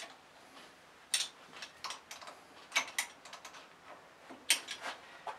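Steel spanner clicking against the nuts on a lathe chuck's mounting studs as they are nipped up tight, a series of sharp metal clicks and taps at irregular intervals.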